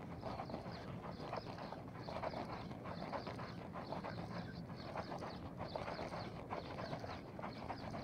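Spinning reel cranked fast to retrieve line, giving a rapid, uneven clicking rattle from its gears and handle.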